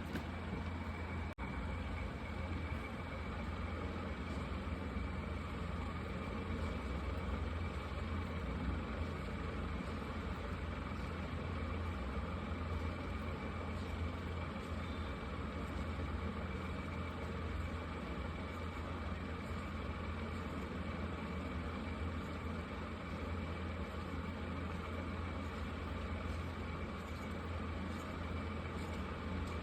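Markers scratching on paper over a steady low hum, with a momentary drop-out about a second and a half in.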